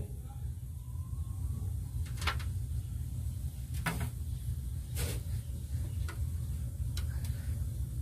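A handful of short, sharp clicks and taps from small parts and tools being handled at an open distributor while its contact points are taken out, over a steady low hum.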